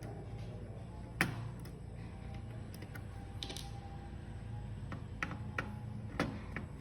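Scattered clicks and taps of plastic laptop parts being handled during disassembly, with a sharp click about a second in and a few more near the end.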